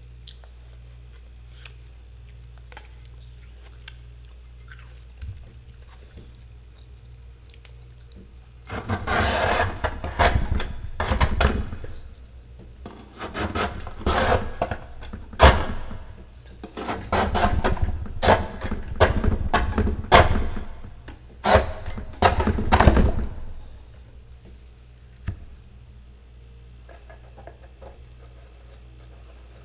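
Metal spatula scraping and chipping thick frost off a freezer's roof: after a quiet start, a long run of loud, rough scraping and crunching strokes, stopping a few seconds before the end.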